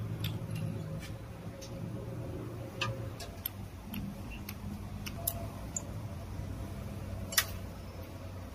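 Small metal parts of a VE-type diesel injection pump clicking and ticking as they are pressed and aligned by hand inside the pump housing, with one sharper click near the end. A steady low hum runs underneath.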